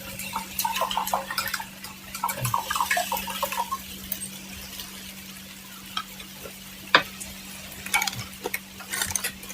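Metal cooking utensils clattering and scraping at a street-food griddle, with food sizzling and a steady hum underneath; one sharp knock about seven seconds in.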